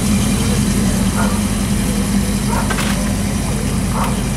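Car engine of a 1962 Chevrolet Impala convertible idling with a steady low hum as the car creeps along at walking pace.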